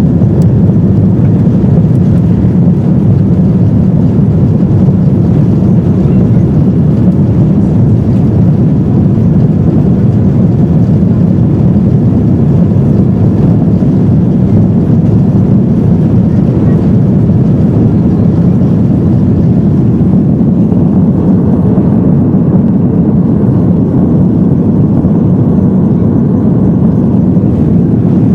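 Airbus A330-200 jet engines at takeoff power heard inside the cabin: a loud, steady, deep roar that swells up just as it begins, typical of the takeoff roll and climb-out.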